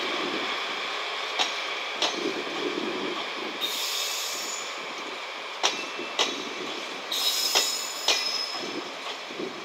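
JNR 12-series passenger coaches rolling past behind a DD51 diesel. Their wheels click over rail joints in pairs as each bogie crosses, over a steady rolling noise, with a high metallic squeal about four seconds in and again near seven seconds.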